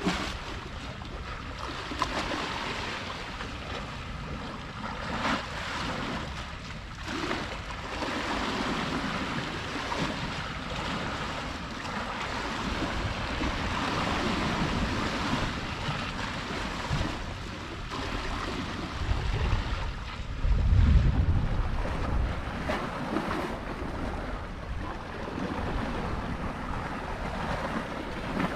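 Sea waves washing against the shore in a steady, swelling wash, with wind buffeting the microphone; one strong low gust rumbles about two-thirds of the way through.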